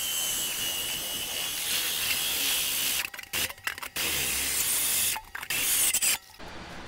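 Cordless drill spinning a hole saw against the porcelain-enamelled steel bottom of a grill: a harsh grinding hiss with a high whine at first, stopping and restarting several times in the second half. The cutter is failing to bite through the porcelain.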